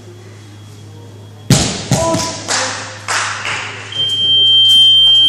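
A sudden loud thump about one and a half seconds in, followed by several more knocks and a short shout. From about four seconds in, a judo scoreboard's electronic buzzer sounds one long, steady, high-pitched beep, the signal that a timer has run out.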